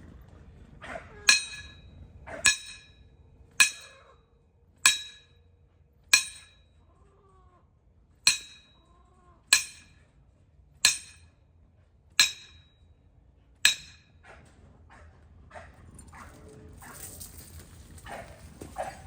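Metal striking metal: a chain set-up's stake being pounded in with a stand-in tool in place of a sledgehammer. About ten ringing clangs come at a steady pace, roughly one a second, with a pause in the middle.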